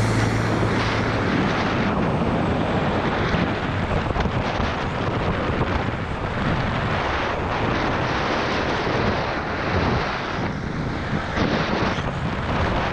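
Wind rushing over a camera microphone at downhill longboarding speed, mixed with the steady roll of longboard wheels on asphalt.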